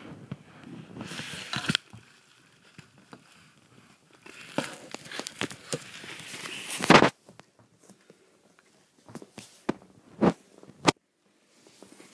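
Rustling and scraping of a phone being handled and swung about close to its microphone, with several short sharp knocks, the loudest about seven seconds in.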